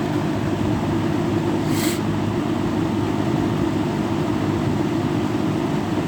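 Box fan with a Kmart P23 motor and blade running steadily on its high speed: an even, loud rush of air over the motor's hum. A brief hiss comes about two seconds in.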